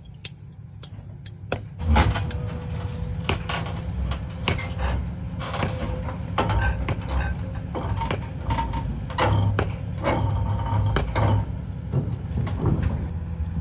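Komatsu PC210 excavator's diesel engine running steadily under load, with a steady whine and repeated knocks and scrapes as the bucket works against a large rock. The loudest knock comes about two seconds in.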